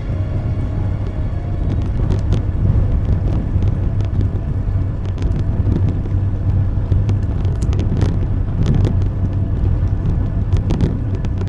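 Steady low rumble of a car on the move, with scattered light clicks and knocks.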